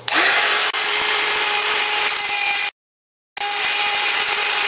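Handheld rotary tool with a small cutting disc running at speed, cutting into PVC pipe with a steady high whine. It starts abruptly, cuts out suddenly a little over halfway through, and starts again about half a second later.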